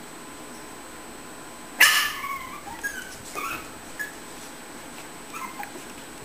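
Puppies yipping and whimpering: one sharp loud yip about two seconds in, then a few short high-pitched yips and whimpers.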